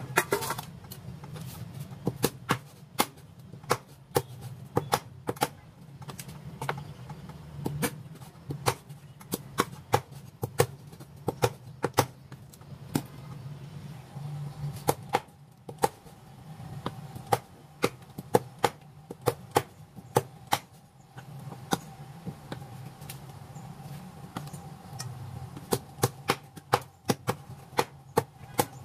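Meat cleaver chopping raw chicken on a wooden chopping board: sharp chops, one or two a second, in irregular runs with short pauses. A steady low hum runs beneath.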